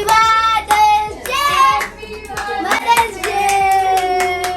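A song with singing over a regular beat of claps, ending on a long held note.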